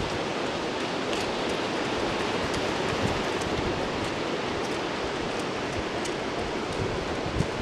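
Steady rushing noise of wind buffeting the microphone outdoors, with irregular low thuds.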